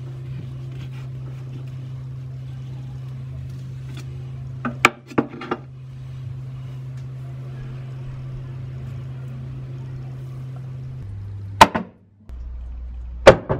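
A kitchen knife cuts round an avocado on a wooden chopping board, then is set down with a few sharp clicks as the avocado is twisted apart. Two loud sharp knocks come near the end, over a steady low hum that drops in pitch shortly before them.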